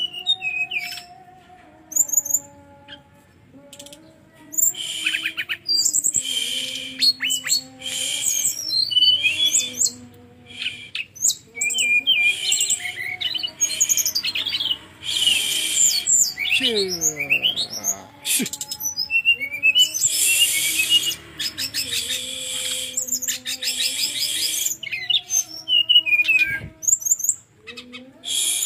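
Brown-chested jungle flycatcher (SRDC) song: rapid, varied chirps, trills and short whistled phrases, sparse for the first few seconds and then almost continuous. A low steady hum underneath changes pitch every few seconds.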